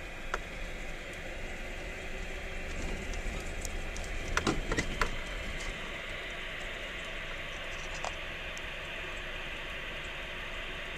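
Steady road and engine rumble heard inside a moving vehicle's cabin, with a short run of knocks and rattles about four to five seconds in.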